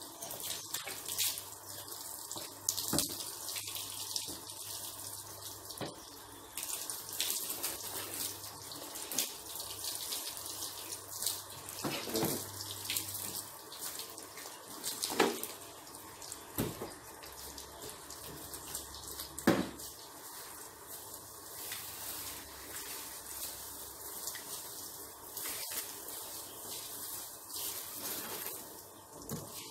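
Water splashing and trickling as a car body is washed by hand. A few sharp knocks stand out, the loudest about 15 and 19 seconds in.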